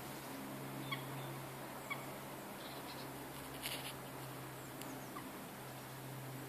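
A steady low drone, likened to giant machinery, with a few short bird calls over it about one, two and four seconds in.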